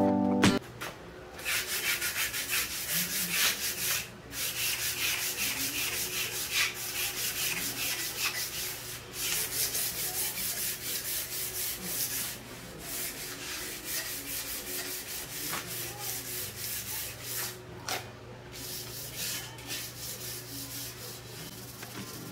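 Square steel tubing being hand-sanded with a sanding block in quick back-and-forth strokes, a dry scratchy rubbing with a few short pauses.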